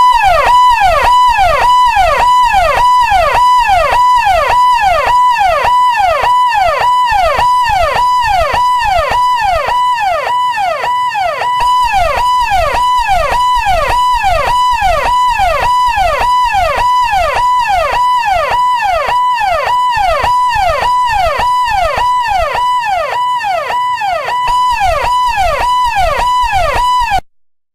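Electronic ambulance siren in a fast yelp, its pitch sweeping up and down in rapid, even cycles over a steady tone. It cuts off suddenly near the end.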